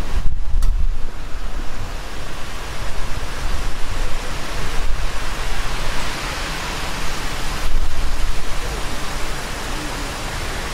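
Kirishima volcano erupting: a continuous rushing noise with a heavy, fluctuating low rumble as the ash cloud pours down the slope, mixed with wind buffeting the microphone.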